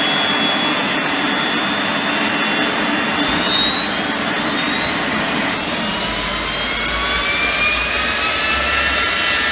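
L-39 Albatros jet's Ivchenko AI-25TL turbofan running on the ground: a steady high whine over a loud rush. About three seconds in, the whine starts rising in pitch as the engine spools up, and more rising tones and a deep rumble join in the second half.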